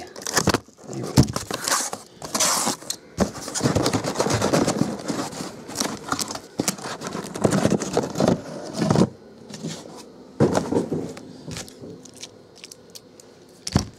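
A cardboard shipping case being handled while shrink-wrapped trading-card hobby boxes are pulled out of it and stacked on a table: an uneven run of scraping, rustling and sharp knocks.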